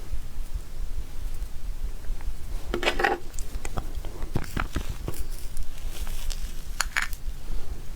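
Close-miked mukbang eating sounds: scattered small mouth clicks and smacks, with louder bursts about three and seven seconds in, over a steady low hum.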